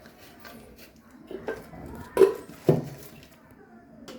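A few hard knocks and clatters, as of mixer-grinder jars or lids being handled and set down. The two loudest come about half a second apart a little past the middle. The motor is not running.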